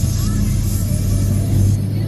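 Music playing over the low, steady rumble of a vehicle driving on the road.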